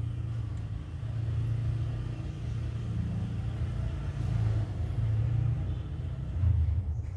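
Low, continuous rumbling purr of a mother cat lying contentedly while her kittens nurse, swelling and easing every second or so.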